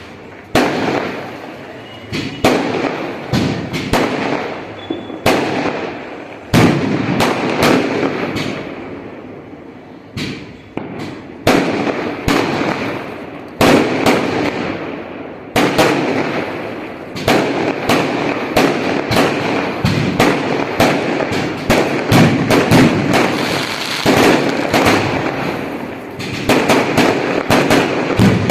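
A long run of loud, sharp bangs at irregular intervals of about one to two seconds, each trailing off in a rumble and often overlapping the next.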